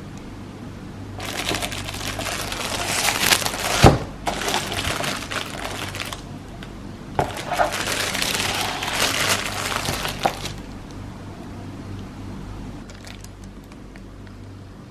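Crinkling of packaging being handled, in two spells of several seconds each, with a sharp snap about four seconds in.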